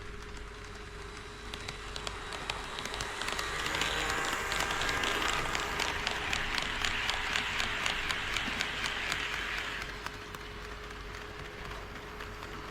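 HO-scale model train running past on KATO Unitrack: a rolling hiss with quick, regular clicks of the wheels over the rail joints. It grows louder over the first few seconds, holds, then fades about ten seconds in.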